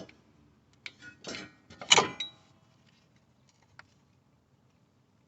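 Metal clicks and two short scraping clanks as a large steel C-clamp is fitted against the brake caliper to push the piston back. The loudest clank comes about two seconds in, then it goes quiet apart from one light click.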